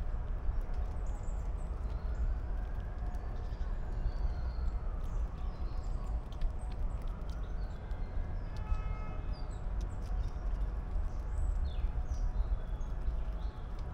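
Eastern grey squirrel gnawing and chewing a nut close by: a scatter of small crunching clicks over a low steady rumble, with birds chirping faintly.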